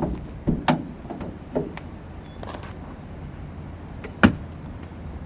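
Scattered clicks and knocks of hands working on a car, with one sharp knock about four seconds in.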